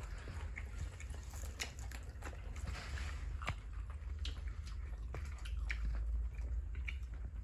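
Close-up chewing and biting into seafood, with scattered short wet clicks and smacks at irregular intervals over a steady low hum.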